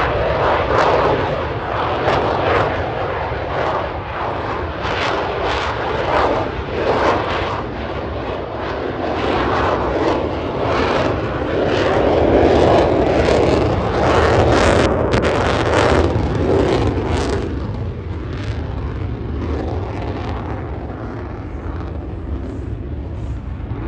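F-35A Lightning II jet, its single Pratt & Whitney F135 afterburning turbofan loud in a display pass, with crackling through the noise; it is loudest about halfway through and fades toward the end.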